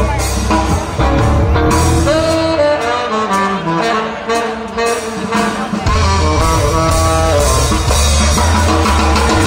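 Live swing band with a horn section playing. The low bass drops out for a few seconds in the middle, then comes back in.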